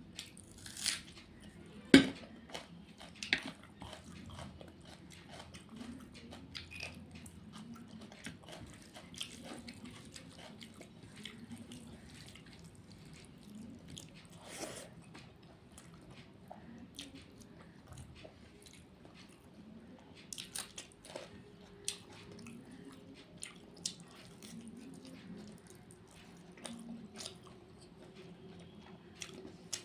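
Close-up eating sounds of a rice-and-curry meal: chewing and wet mouth sounds, with scattered sharp clicks and taps, the loudest a few seconds in.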